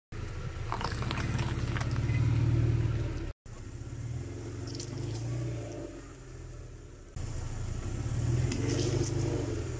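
Car engine running at low speed as the car rolls over objects, with short clusters of crackling crunches as they are crushed under the tyres. The sound is cut into three short pieces, dropping out abruptly about a third of the way in and jumping again near two-thirds.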